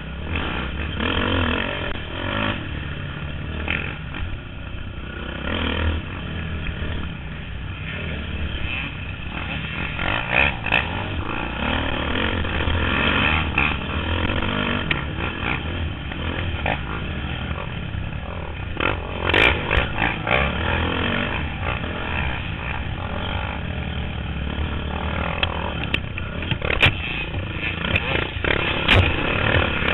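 Dirt bike engine running at varying throttle on a rough trail, close to the helmet microphone, with a few sharp knocks from bumps.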